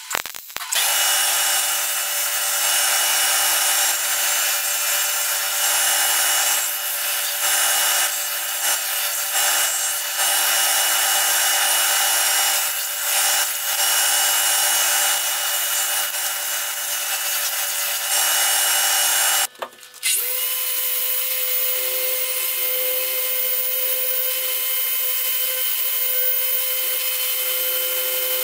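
A sanding belt machine runs steadily on steel, its level dipping now and then, for most of the first twenty seconds. After a brief stop, a hand-held random orbital sander starts and runs steadily on the rusty steel of an old axe head.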